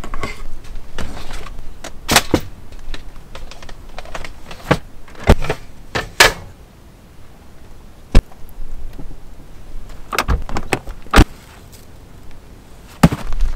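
Camping gear being handled in and around a small car: irregular knocks, clunks and clicks as items are lifted and set down, with rustling in between. The sharpest click comes about eight seconds in.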